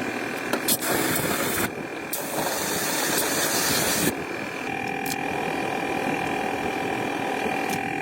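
Hand-tool and workshop noise on an old car being restored: scraping and clicking, with a steady whine that comes in about five seconds in.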